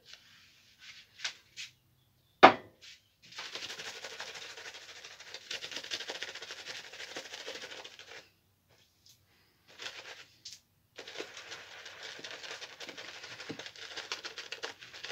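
Shaving brush being worked over the face, building shaving-soap lather: a fine, scratchy crackle in two long stretches with a pause between. Before it come a few light clicks and one sharp knock about two and a half seconds in.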